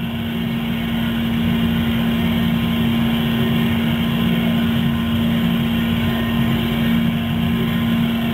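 Steady, unchanging mechanical drone with a constant low hum and no distinct events.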